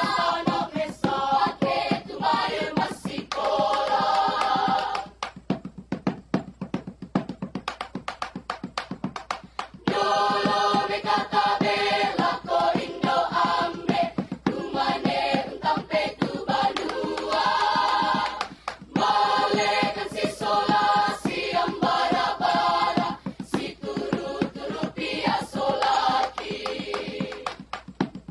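Choir singing in harmony over a fast, steady percussive beat. About five seconds in the voices drop back for several seconds and the beat carries on nearly alone, then the full choir comes back in.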